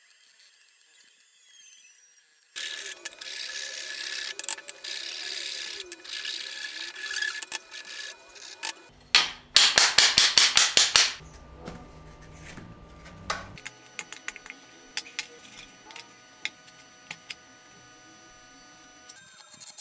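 Hand sanding of wood with a sanding block in steady strokes. Then comes a short run of rapid, loud strokes, about five a second, as two small wooden pieces are worked together and throw off dust. After that, quieter scraping along a wooden board with a hand scraper, with scattered clicks.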